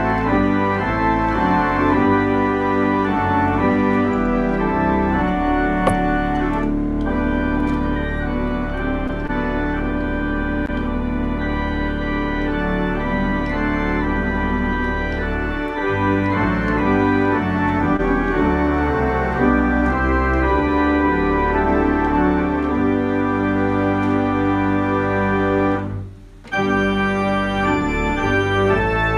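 Compton cinema organ playing a carol in full, sustained chords, with a brief break near the end before the playing goes on.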